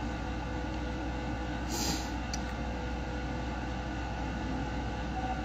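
Steady hum of an air conditioner in a small room, with a short hiss about two seconds in and a faint click just after.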